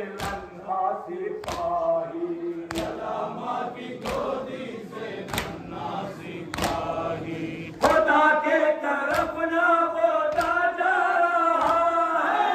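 Crowd of men chanting a nauha in unison, with a sharp beat of hands striking chests (matam) about once every 1.3 seconds. The chanting grows louder about eight seconds in.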